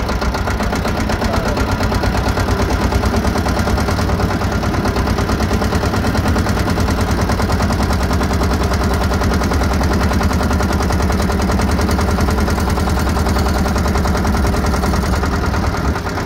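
Motorboat engine running steadily close by, with a fast, even knocking beat.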